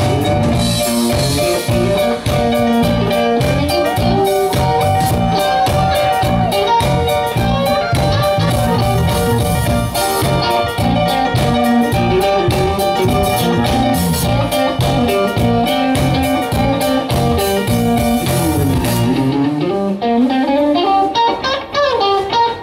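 Live rock band playing an instrumental passage on electric guitars, bass guitar, drums and keyboard. About three-quarters of the way through, the drums and bass stop, leaving an electric guitar alone bending notes.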